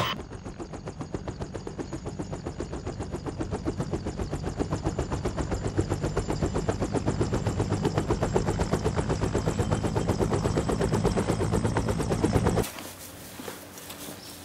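An engine running with a rapid, even pulse, growing gradually louder, then cutting off suddenly near the end.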